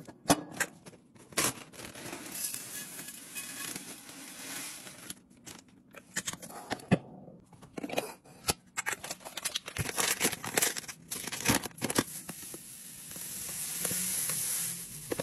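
Handling sounds of restocking glass Mason jars: clicks and knocks of metal lids and glass, and crinkling of a paper bag. Near the end, dry goods pour from the paper bag into a jar with a steady hiss.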